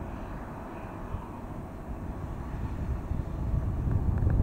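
Airbus A320neo jet engines at takeoff thrust on the takeoff roll: a distant low rumble that grows louder toward the end as the aircraft approaches.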